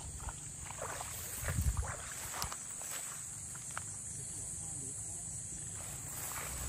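Wind rumbling on the microphone, strongest in a gust about a second and a half in, with footsteps brushing through tall grass and a steady high drone of night insects.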